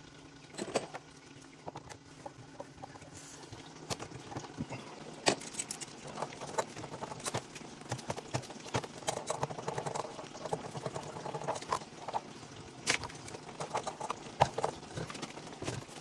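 Irregular metallic clicks, knocks and scrapes of a pipe wrench and fittings being worked at the hot-water outlet on top of a water heater, as the hot-water line is taken off the tank.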